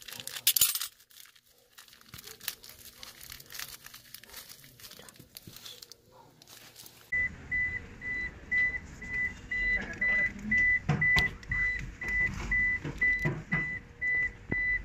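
Crinkling and scraping of a plastic-wrapped package being worked out of a hidden compartment in a vehicle's underside. About halfway through, this gives way to a high electronic beep repeating about three times a second over a low rumble.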